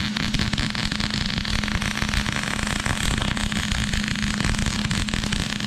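MIG welder arc crackling steadily as a bead is run on a steel bolt, a dense frying crackle over a steady low hum.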